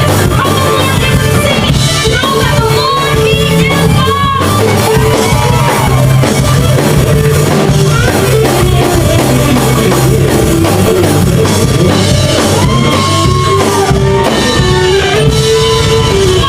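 Church rock band playing loud: a singer over drum kit, bass and electric guitar.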